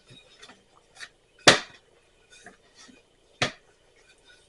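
Two sharp knocks, about a second and a half in and again about two seconds later, with light taps and clicks between: kitchen utensils handled on a counter while tortilla dough is rolled out.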